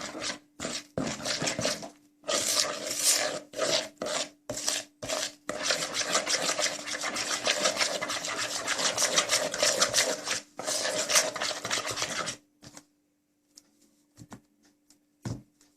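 A utensil scraping and rubbing against a mixing bowl in rapid strokes, stirring flour with baking powder into creamed margarine, powdered sugar and egg yolks. The stirring stops about twelve seconds in, leaving a few faint clicks.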